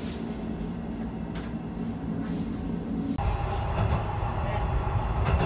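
Sanriku Railway diesel railcar standing with its engine idling, a steady low hum. About three seconds in, it cuts abruptly to the railcar running along the line: louder wheel-and-rail noise with a high squeal.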